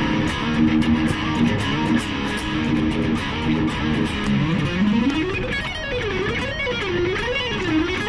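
Electric guitar music cutting in abruptly: short repeated notes at first, then from about four seconds in a melody line that climbs and swings up and down.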